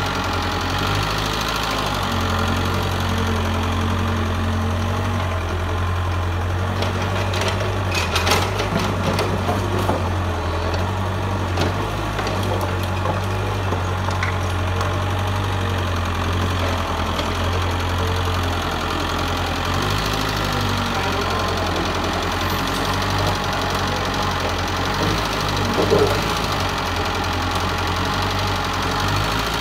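Mitsubishi excavator's diesel engine running steadily, its pitch stepping up and down as the load changes. A few sharp metallic knocks from the working machine come about a third of the way in and again near the end.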